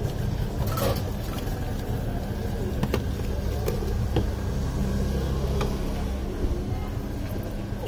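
Steady low rumble of road traffic, with a few sharp clinks of a steel spoon against a stainless-steel mixing bowl.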